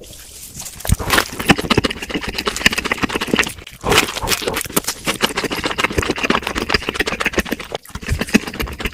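Close-miked chewing of crispy fried food: a dense run of crunches and crackles, with two short pauses between bites.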